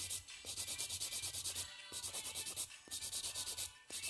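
Hand nail file scraping back and forth across a hardened polygel nail, in even strokes about one a second, shaping the apex.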